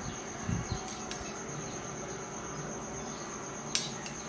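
A cricket trilling steadily at a high pitch. A metal spoon clinks once against a small brass bowl near the end, with a couple of soft low knocks about half a second in.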